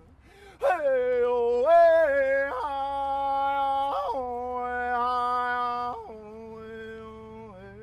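A man singing a wordless chant in long held notes that step between a few pitches, loud at first and softer from about six seconds in.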